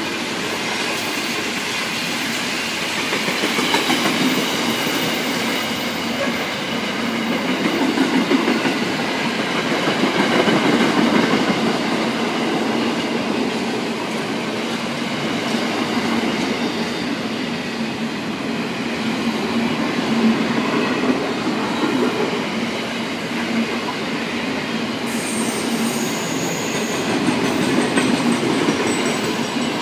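A freight train's wagons rolling past on the rails: a steady rumble of wheels on track, with faint wheel squeal throughout and a sharper, high-pitched wheel squeal setting in near the end.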